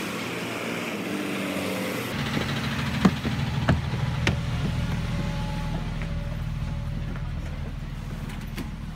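School bus engine idling steadily, heard first beside the bus and then from inside as someone climbs aboard. A few sharp knocks about three to four seconds in as feet land on the bus's metal steps.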